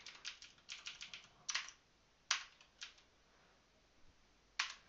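Computer keyboard typing: a quick run of keystrokes for about the first two seconds, then a few single key presses spaced out.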